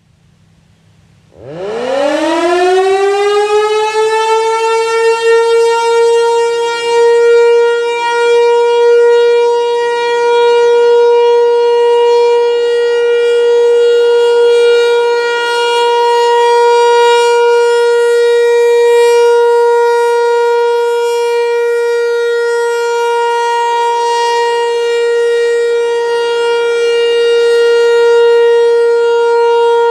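American Signal Corporation T-128 battery-powered (DC) rotating outdoor warning siren winding up quickly about a second and a half in, then holding a steady, very punchy alert tone.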